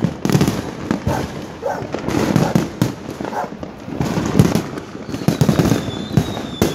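Many fireworks going off at once: a dense, irregular run of bangs and crackles from aerial shells and firecrackers, with a high whistle sliding slowly down in pitch near the end.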